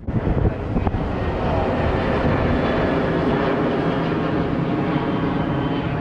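Steady road and engine noise of a car driving slowly, heard from inside the car; it begins abruptly.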